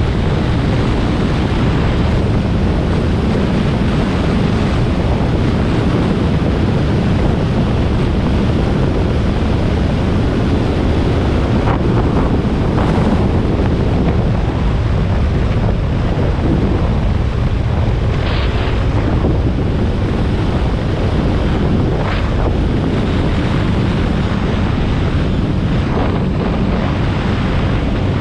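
Wind rushing over an action camera's microphone on a motorcycle at road speed, a steady loud rumble with the bike's running and tyre noise buried in it. A few short bumps of noise stand out over the rumble.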